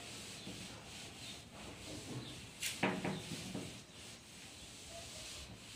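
Blackboard duster rubbing back and forth across a chalkboard, wiping off chalk writing: a steady scrubbing, with one louder stroke about three seconds in.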